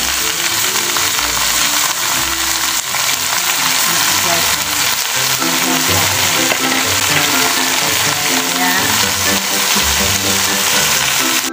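Raw chicken breast pieces frying in hot oil in a wok with garlic and onion: a steady, loud sizzle.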